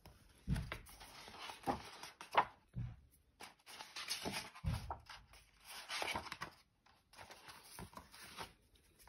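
Paper rustling and soft knocks as a hardcover picture book with thick pages is handled: hands sliding over and turning the pages, then the book is closed and moved on a wooden table. There are several separate swishes and light thuds at irregular moments.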